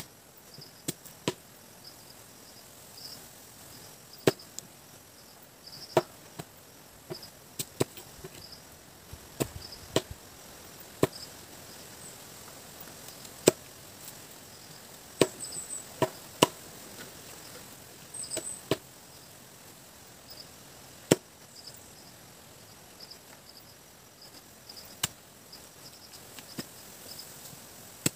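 Irregular sharp chopping strikes of a blade cutting into lakatan banana suckers or corms, about one every one to two seconds. Behind them, insects keep up a steady pulsing chirp, and there are a couple of short high chirps partway through.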